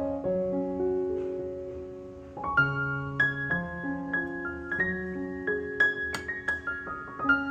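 Slow, gentle background piano music: held chords under a simple melody, with notes struck and left to ring.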